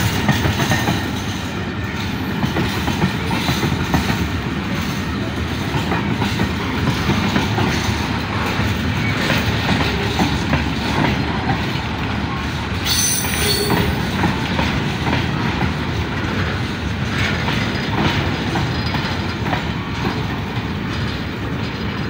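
Freight wagons, container flatcars and open box wagons, rolling past close by: a steady rumble of steel wheels on rail with repeated clicking and clatter over the rail joints, and a brief high wheel squeal about thirteen seconds in.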